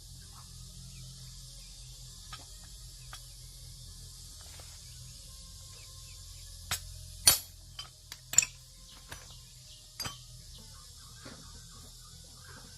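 A run of sharp metallic clinks and taps from tools and metal parts being handled during machine repair work, the loudest about seven seconds in, over a steady high hiss and low hum.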